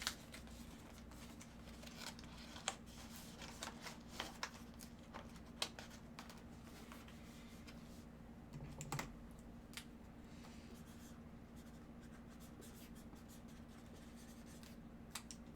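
Faint, scattered light clicks and scratches, most of them in the first ten seconds, over a low steady hum.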